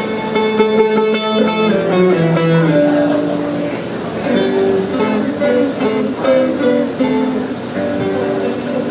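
Bağlama (long-necked Turkish saz) played solo with a plectrum. Rapid picked notes in the first few seconds give way to a slower melody of single plucked notes.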